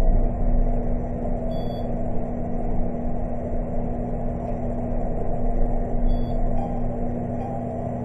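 Elevator car running: a steady hum and low rumble from the cab and its drive.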